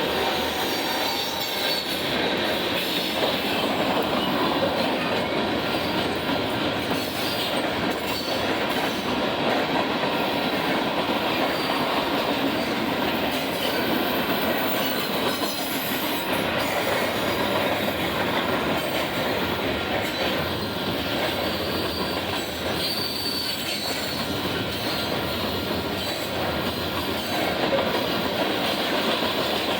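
Union Pacific mixed freight train's cars rolling past at steady speed: continuous steel wheel-on-rail noise.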